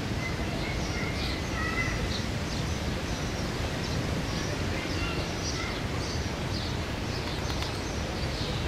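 Small birds chirping over and over above a steady low rumble of outdoor noise, with a few thin whistled notes about one to two seconds in.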